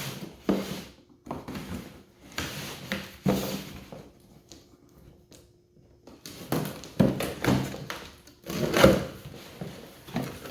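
Cardboard box and packaged parts being handled: a string of rustles, scrapes and dull thunks, with a lull about four seconds in and the loudest thunk near the end.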